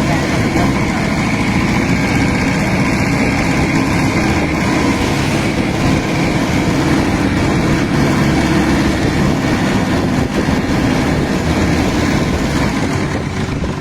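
Car engine fitted as a boat's motor, running steadily.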